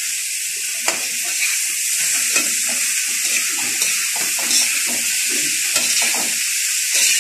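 Sliced bitter gourd (ampalaya) sizzling in a hot wok with a steady hiss, while a spatula stirs and scrapes it, making frequent short scrapes and clicks against the pan.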